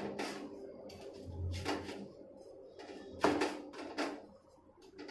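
A few sharp knocks and clatters of a metal spatula and hands handling a ragi roti on a flat iron griddle, the loudest about three seconds in.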